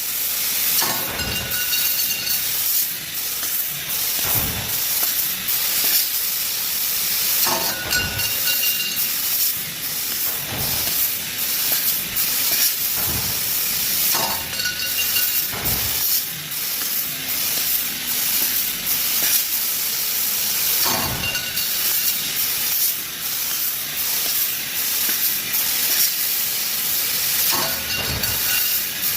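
Laser tube cutting machine running: a steady hiss with occasional knocks, and a short whine that comes back about every seven seconds.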